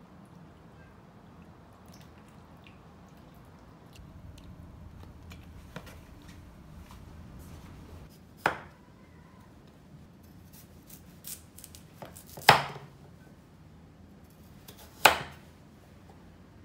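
Santoku knife cutting potato and carrot on a wooden cutting board: three sharp knocks of the blade striking the board, starting about halfway in, with a few lighter clicks between the second and third.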